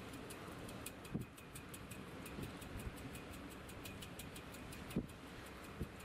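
Steady, even ticking at about four ticks a second over a low rumble, with a couple of short dull thumps, about a second in and near five seconds.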